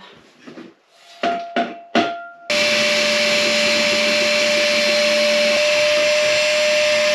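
A few short clattering noises, then a vacuum cleaner is switched on about two and a half seconds in and runs with a steady whine, sucking debris out of an old wood stove.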